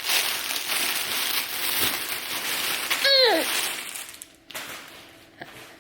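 Rustling and rubbing on the camera's microphone as a baby grabs and handles the camera, with a short falling squeal from the baby about three seconds in.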